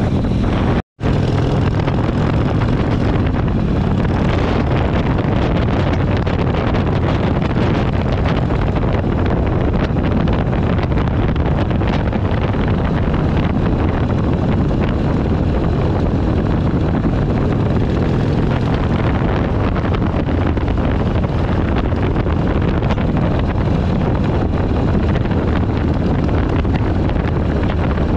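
Harley-Davidson V-twin motorcycle engine running steadily at cruising speed, mixed with wind rushing over the microphone. The sound cuts out for an instant about a second in, then carries on unchanged.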